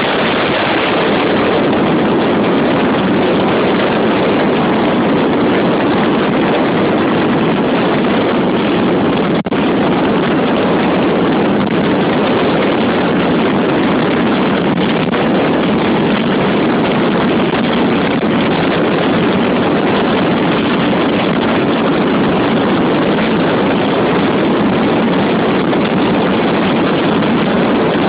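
Honda XR 250 Tornado ridden at a steady cruise: wind rushing over the microphone over the single-cylinder four-stroke engine running steadily.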